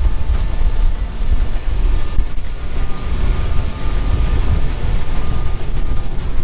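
Wind buffeting the microphone on the deck of a boat under way at sea: a loud, gusting rumble over the rush of the boat's wake.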